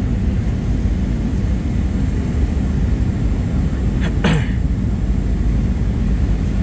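Steady low rumble of engine and airflow noise inside the cabin of a Boeing 737-800 on final approach. About four seconds in there is one short sound that falls in pitch.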